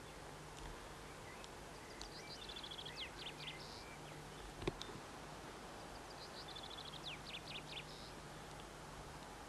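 A small songbird sings two short phrases of rapid, high, downward-sweeping notes, about two seconds in and again about seven seconds in. A single sharp click comes about halfway through, over a steady low hum.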